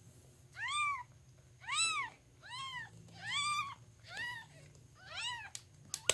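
Newborn kitten mewing: six high, thin cries about a second apart, each rising and then falling in pitch. A sharp click comes right at the end.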